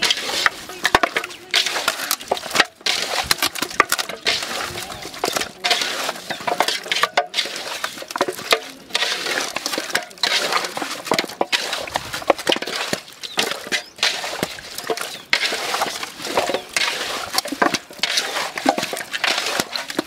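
Hands squishing and turning raw chicken drumsticks in a thick curd-and-chilli-powder marinade in a large bucket: a continuous run of wet squelches and slaps in quick, irregular succession.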